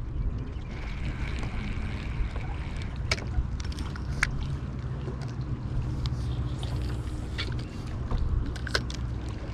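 Water lapping against a small boat's hull, a steady low rumble, with a few sharp clicks and knocks about three, four and nine seconds in.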